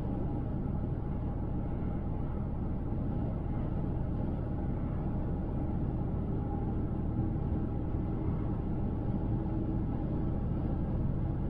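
Car driving at highway speed: a steady rumble of tyres, engine and wind.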